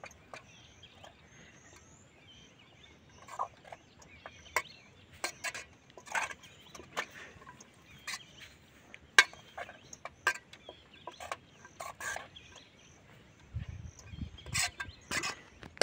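Metal spoon stirring cabbage and carrots in an aluminium cooking pot, clinking against the pot's side in short irregular knocks, the sharpest about nine seconds in.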